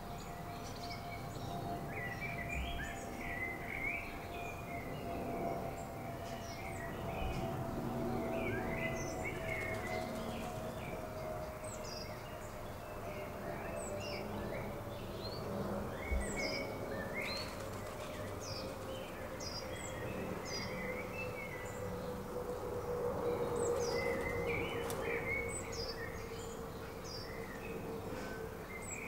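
Small garden birds chirping and twittering in many short calls. Behind them runs a steady drone that slowly falls in pitch, and there is one brief tap about halfway through.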